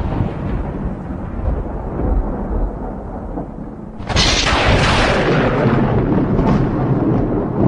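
Thunder sound effect: a rumble fading away, then a sudden sharp thunderclap about four seconds in that rolls on into a long rumble.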